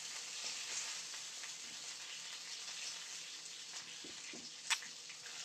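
Chicken pieces sizzling in oil in a frying pan after the heat has been turned down: a steady hiss that slowly fades. One sharp click comes near the end.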